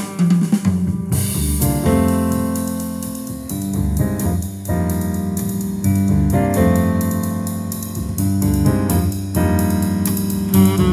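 Instrumental music with keyboard, bass and drums played back through a pair of Dual CL270 three-way loudspeakers, with a steady ticking cymbal beat over held notes.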